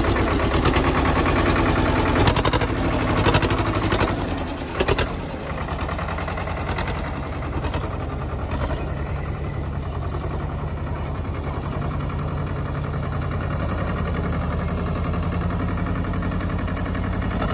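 Sonalika tractor's diesel engine running as the tractor drives across a dirt field. It is loudest in the first few seconds, then a steady, slightly quieter rumble.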